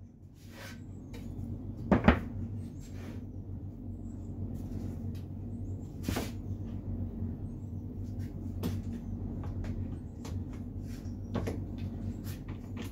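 Wooden boards being handled and set down on a wooden workbench: a sharp knock about two seconds in and a few lighter knocks later. A steady low motor hum comes up in the first second or two and runs under the knocks.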